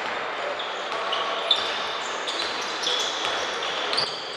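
Basketball play on a hardwood court: the ball bouncing and sneakers giving short, high squeaks on the floor over a steady background of the hall.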